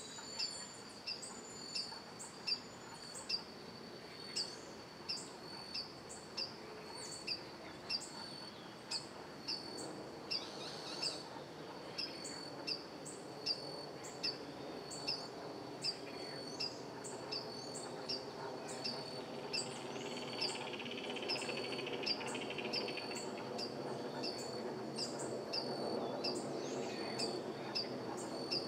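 A bird repeating a short, sharp high call at an even pace, roughly one every three-quarters of a second, over a steady high-pitched insect drone. A faint low hum comes up in the second half.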